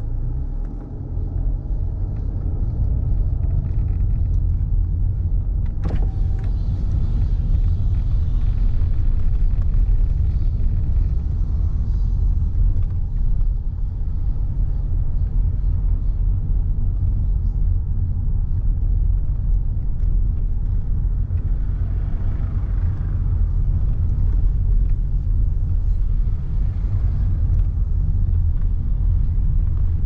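Steady low rumble of a car driving slowly, engine and tyre noise heard from inside the car, with a single click about six seconds in. Cicadas buzz faintly from the roadside trees in patches over it.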